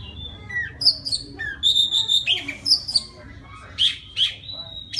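Male oriental magpie-robin singing a varied, quick run of short clear whistles and chirps, some sliding up or down in pitch, to call a female.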